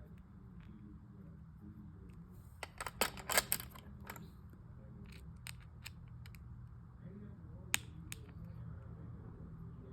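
Small tool clicking and scraping against a phone during a repair: a quick run of sharp clicks about three seconds in, then scattered single clicks, one sharper and louder near the eight-second mark.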